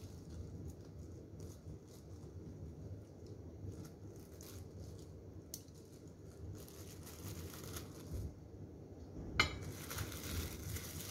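Clear disposable plastic glove crinkling faintly as the gloved hand handles cut century egg halves, with one sharp click near the end as a piece is set down on a ceramic plate.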